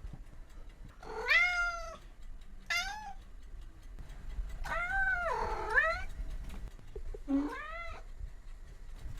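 A cat meowing four times. The loudest call comes about a second in, followed by a short one. A long, drawn-out meow dips and rises in pitch in the middle, and a shorter call comes near the end.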